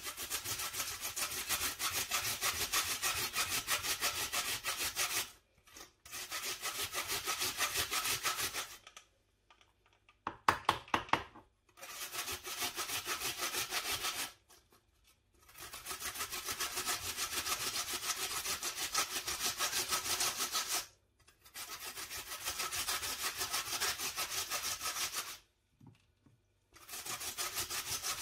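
Raw potatoes rubbed back and forth across a metal box grater, a quick rasping scrape on every stroke, in runs of several seconds with short pauses between. About ten seconds in, a few louder, ringing knocks.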